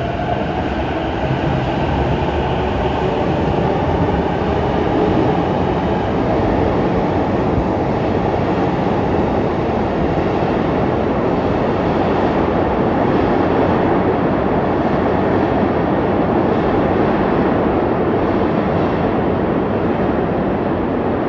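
Electric commuter train moving along the platform: a loud, steady rumble of wheels and running gear, with a motor whine that fades out in the first couple of seconds.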